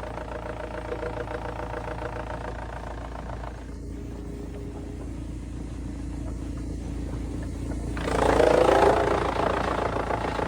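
An engine running steadily. About eight seconds in it turns louder and harsher for about a second, then settles back to a steady run.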